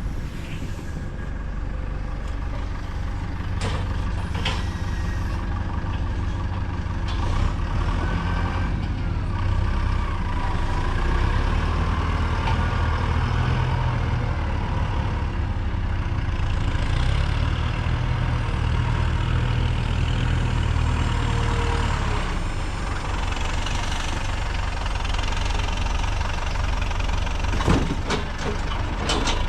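A vehicle engine runs steadily with a deep drone, with a few brief knocks and rattles.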